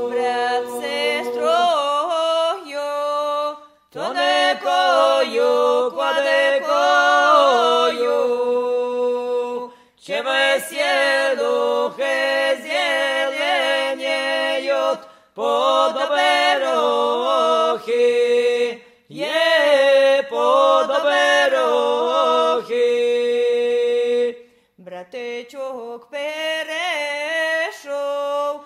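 A group of voices singing a folk song unaccompanied, in phrases of about four to six seconds with short breaks for breath between them.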